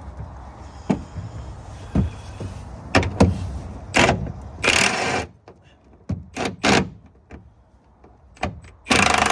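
An impact wrench backs out a truck bed bolt, with a series of sharp knocks and clicks, then a short run of the wrench about four and a half seconds in and a longer one of about a second near the end.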